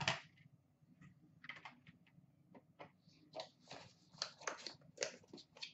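Faint, irregular run of light clicks and taps, about a dozen: hard plastic graded-card slabs being handled and stacked.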